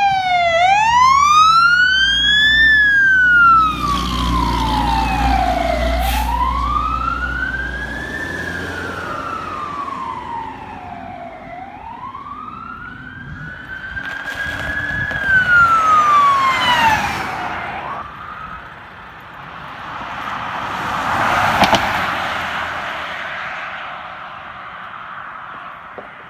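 Emergency sirens on a slow wail, each rise and fall taking about five to six seconds, over a heavy engine rumble for the first eight seconds as a 1999 Pierce Saber fire engine passes. In the middle, more sirens overlap with quicker sweeps. A vehicle rushes past about two-thirds through, and then the sound fades.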